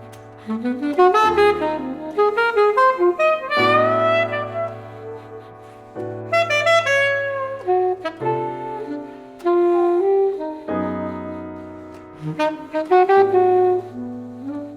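Live chamber jazz: an alto saxophone plays quick, ornamented melodic phrases over long-held chords from piano and strings (two violins and viola), the chords changing every couple of seconds.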